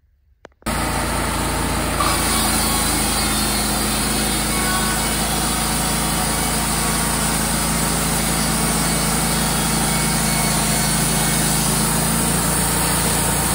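Wood-Mizer LT35 hydraulic portable band sawmill running steadily, its engine and band blade going. The sound cuts in abruptly under a second in.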